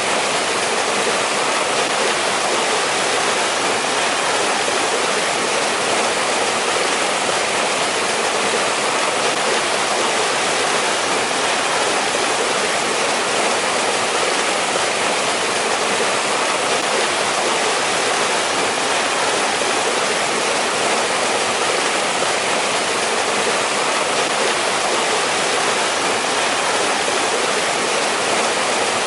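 Mountain stream water rushing steadily over rocks, an even, unbroken hiss and splash.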